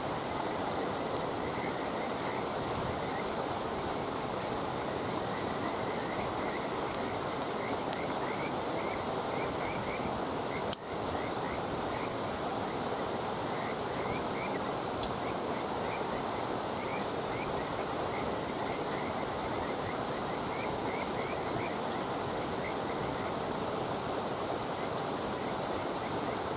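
Wood campfire crackling with a few faint pops and one sharp, loud crack about eleven seconds in. Behind it is a steady rushing background and the repeated small chirps of frogs calling.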